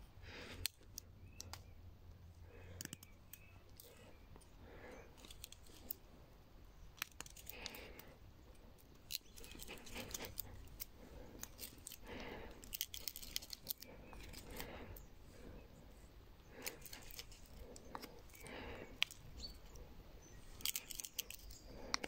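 Carbon-steel sheepsfoot blade of a Coricama Italian army pocket knife whittling a stick: a run of faint, irregular short scraping cuts through bark and wood, with a few sharp clicks.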